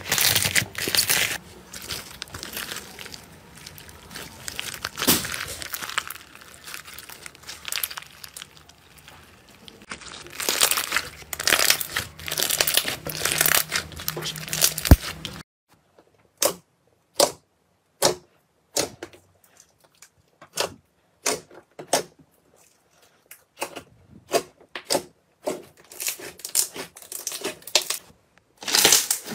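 Foam-bead slime (floam) squeezed and stretched by hand: dense crackling and popping. About halfway through this gives way to single sharp clicks and pops with silence between, some in quick runs.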